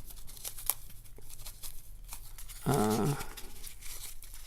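A mailing package being cut and pulled open by hand: scattered small crackles, clicks and tearing of packing material. Just before the middle a short low vocal sound rises above it, the loudest thing here.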